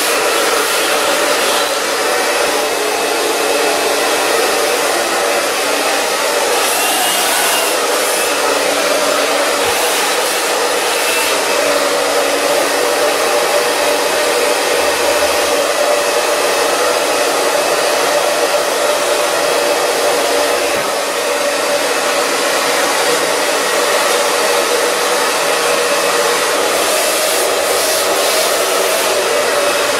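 Handheld hair dryer running steadily, blowing air onto hair wound on a round brush, with an even rush and a faint steady hum.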